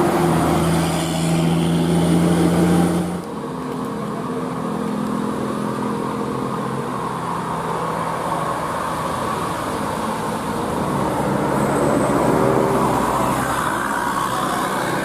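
Heavy road vehicle's engine running close by, with a steady low drone that cuts off about three seconds in. Road traffic hum follows.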